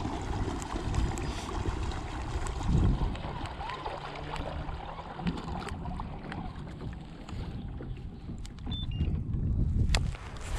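Gusty wind rumbling on the microphone over a kayak sitting on open lake water, with a couple of light clicks near the end.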